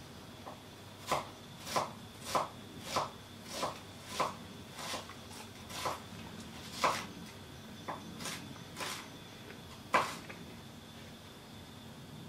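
Chef's knife chopping an onion on a wooden cutting board: a series of sharp knife strikes on the board, about two a second at first, then more sparse, with one louder strike about ten seconds in.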